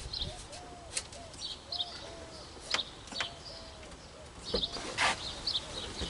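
Birds chirping and calling, a run of short repeated notes with higher chirps over them. Occasional sharp clicks and knocks of the wooden shelf and window frame being handled, the loudest a scraping knock about five seconds in.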